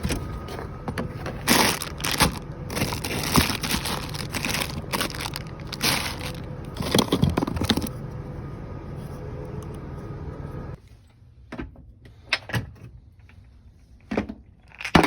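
Clattering, knocking and cracking of hard parts being handled, over a steady hum that cuts off about eleven seconds in, after which the knocks continue sparsely.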